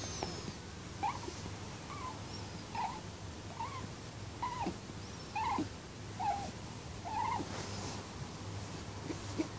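Pet rabbit snoring in its sleep: a short, squeaky chirp with each breath, about one a second, eight in a row.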